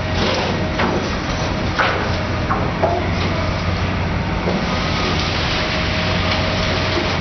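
Steady low hum of running machinery with a faint steady whine over it, and a few sharp knocks about two to three seconds in.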